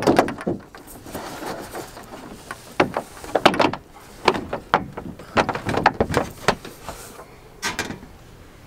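Aluminium-framed solar panel being slid and set down into plastic corner mounting brackets: a run of irregular scrapes and knocks, the loudest right at the start and about three and a half seconds in.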